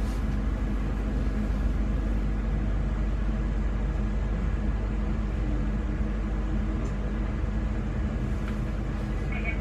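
Inside a Newag Impuls 2 (31WEba) electric multiple unit running along the line: a steady rumble of the train in motion, with faint steady tones above it.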